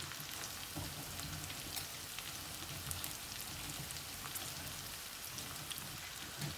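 Chopped onion frying in olive oil in a wok on a gas hob: a steady sizzle with small scattered crackles.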